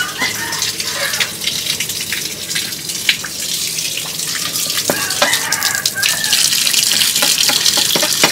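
Tap water running and splashing onto concrete as cleaned catfish are rinsed under it, growing louder in the second half, with a few sharp clicks of handling.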